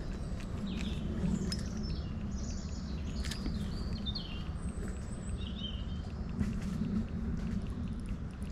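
Small songbirds chirping in short, quick phrases over a steady low rush of flowing stream water.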